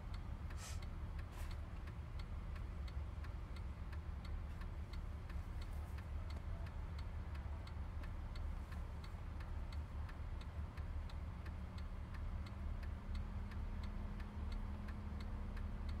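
Inside a moving taxi: steady low rumble of engine and road, with a light regular ticking about twice a second. A faint low hum joins about two-thirds of the way through.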